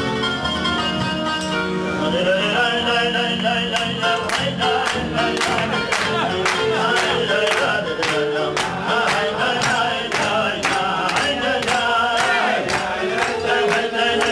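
A chazzan (cantor) singing an ornamented Jewish melody into a microphone, with instrumental accompaniment. From about two seconds in the sound grows fuller and is punctuated by sharp rhythmic strikes.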